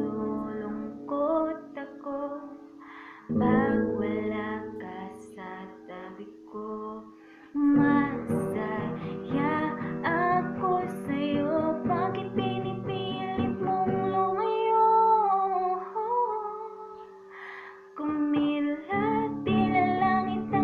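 A woman singing a Tagalog ballad, accompanying herself on acoustic guitar with chords struck every few seconds and left to ring.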